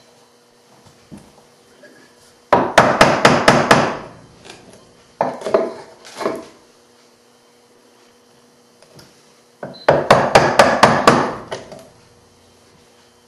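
Wooden mallet striking a chisel to chop out the waste of half-blind dovetail sockets in a hardwood board: two runs of six or seven quick sharp blows, about five a second, the first about two and a half seconds in and the second near ten seconds, with a few lighter knocks between.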